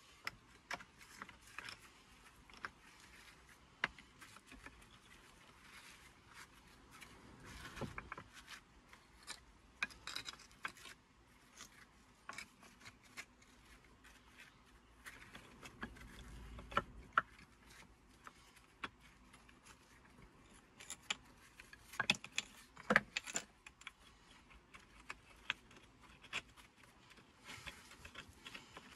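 Stones knocking and scraping against one another as they are handled and set into a dry stone wall: irregular sharp clacks with rubbing between them, the loudest few knocks coming close together about 22 seconds in.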